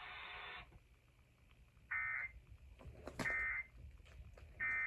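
Three short buzzy electronic data bursts of the Emergency Alert System's end-of-message code, a bit over a second apart: the digital signal that closes the alert broadcast.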